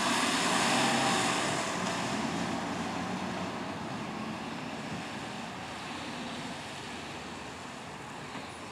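Fire engine driving away, its diesel engine and tyre noise fading steadily into the distance.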